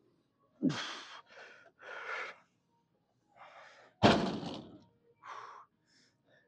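A man's strained grunts and hard exhales as he works through prone leg curls. About four seconds in, the VR3 leg curl machine's weight stack comes down with a loud thud, followed by another short exhale.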